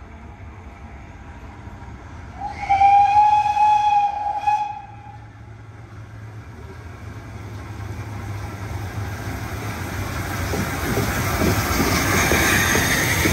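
Steam whistle of GWR Castle class 4-6-0 No. 7029 Clun Castle: one steady single-note blast of about two seconds, a few seconds in. After it the locomotive's running and wheel noise grows steadily louder as it draws up and passes at slow speed.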